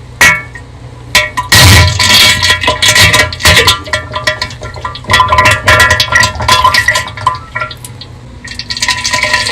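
Crinkling and clattering of an MRE's plastic packaging as the bag is torn open and its contents tipped out, over background music with steady held tones.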